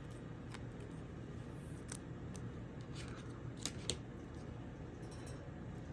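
Faint, scattered clicks and crinkles of a plastic card sleeve being handled as a Pokémon card is slid into it, over a steady low hum.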